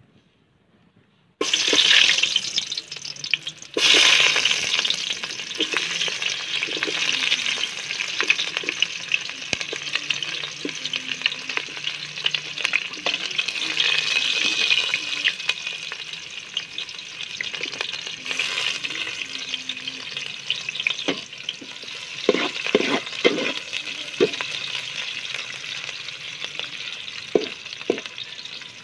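Sliced onions tipped into hot oil in a metal cooking pot, starting a loud sizzle suddenly about a second and a half in, with a second surge a few seconds later. The sizzle keeps up steadily as the onions fry, and a steel ladle stirs and knocks against the pot a few times near the end.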